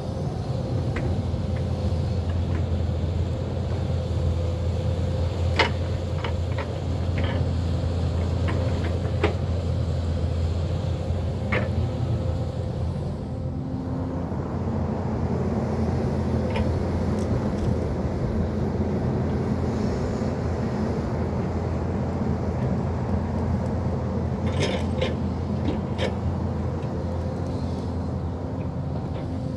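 Hyundai crawler excavator's diesel engine running steadily under working load, easing briefly about halfway through. Scattered sharp knocks and cracks sound over it, about a dozen in all.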